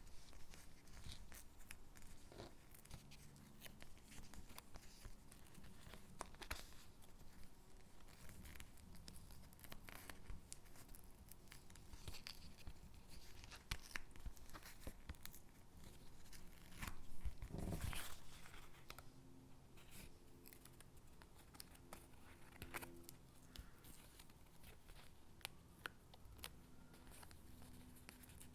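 Stickers being peeled from their backing sheet and pressed onto paper cutouts: soft tearing and rustling of paper with small clicks and taps, loudest in a longer rustle about two-thirds of the way through.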